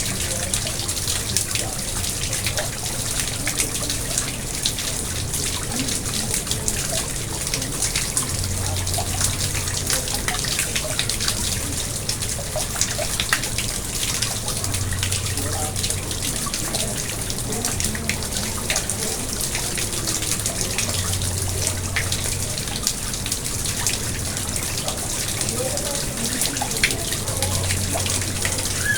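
Garden pond water trickling and splashing steadily, a continuous patter of falling water, under a low hum that swells and fades every few seconds.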